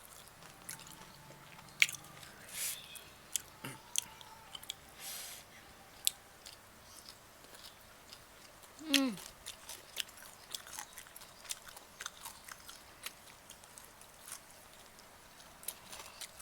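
Close-up eating sounds of someone chewing and biting grilled chicken: scattered sharp mouth clicks and short bursts of chewing.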